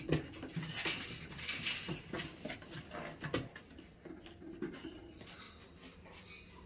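Cirneco dell'Etna puppies moving about on a tile floor: scattered clicks of claws and small scuffles and knocks, busier in the first half and thinning out toward the end.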